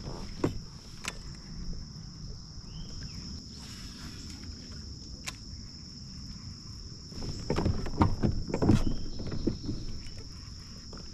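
Insects buzzing in a steady high-pitched drone, with a few sharp clicks, and a short cluster of louder knocks and rustling about eight seconds in.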